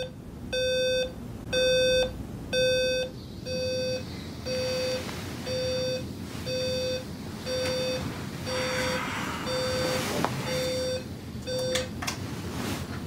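Digital bedside alarm clock beeping about once a second in short even-pitched tones, cut off near the end when it is switched off. Blanket rustling as the sleeper sits up in the last few seconds.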